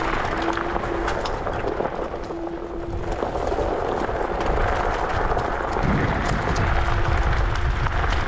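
Wind buffeting an action camera and tyre rumble while riding an electric scooter, a steady rushing noise with scattered small knocks. A faint steady hum comes and goes throughout.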